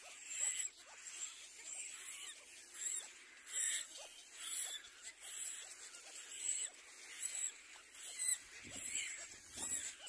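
Little black cormorant chicks giving repeated wheezy begging calls, short high-pitched bursts about once a second, while reaching for the adult's bill to be fed.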